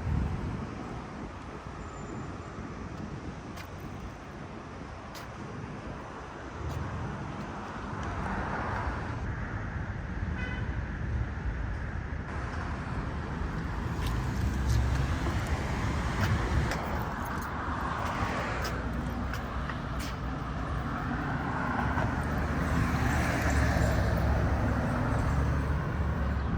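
Street traffic: cars driving past one after another, a steady low rumble and tyre noise that swells and fades as each vehicle passes.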